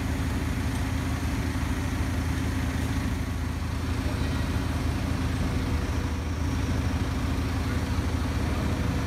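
Truck-mounted crane's diesel engine running at a steady low hum while the crane lowers its load.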